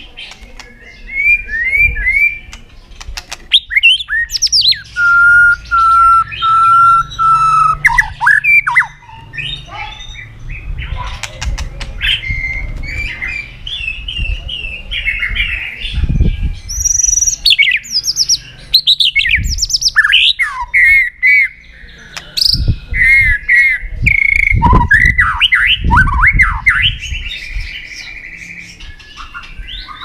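White-rumped shama singing a long, varied song of clear whistles, rising and falling glides and rapid trills, with a few low thumps now and then.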